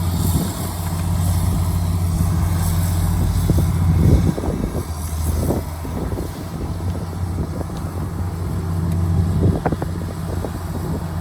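Diesel engine of heavy earthmoving machinery running steadily, with a few knocks and clunks.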